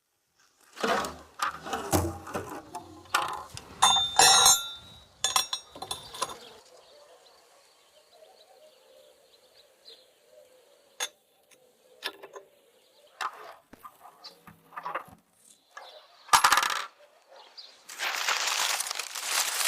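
Metal clattering and clinking, with short ringing tones, for the first few seconds, then mostly quiet with scattered knocks, and a burst of rustling near the end.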